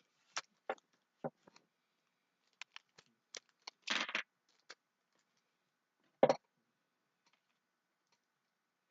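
Small hard plastic miniature parts being handled and fitted together: scattered light clicks and taps, a brief rattling clatter about four seconds in, and one louder knock a little after six seconds.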